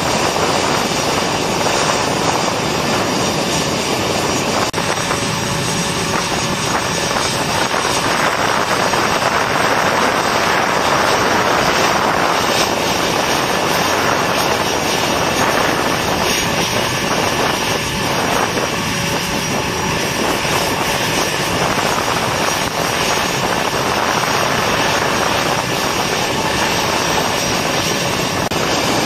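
Steady, loud jet-aircraft engine noise, a continuous roar without pauses.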